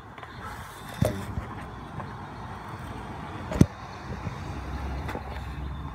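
Car engine running with a steady low rumble. Two sharp knocks sound, about one second in and again around three and a half seconds in.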